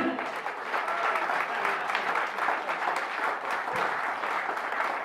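Audience applauding steadily as a live blues band finishes its song, the band's short closing chord sounding right at the start.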